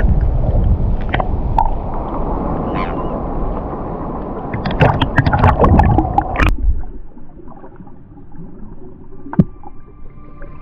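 Water sloshing and splashing against a GoPro camera at the surface: a loud rushing noise with sharp splash clicks toward the middle. About six and a half seconds in it cuts to a quieter, muffled underwater sound, with a single click near the end.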